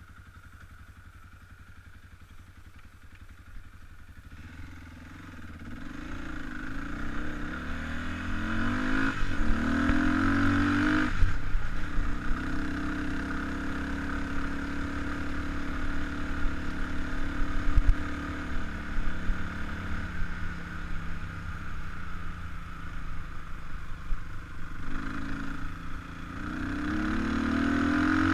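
Kawasaki KLX300 dirt bike's four-stroke single-cylinder engine under way, quiet at first, then revving up about five seconds in and rising and falling with the throttle. The revs climb and drop off sharply a little before halfway, run steadier through the middle, and rise again near the end.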